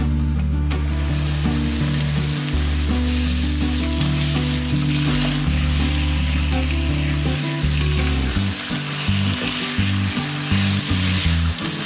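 Raw mutton pieces sizzling as they hit the hot wok of fried onions and are stirred with a spatula; the sizzle rises about a second in and goes on steadily. Background music plays underneath.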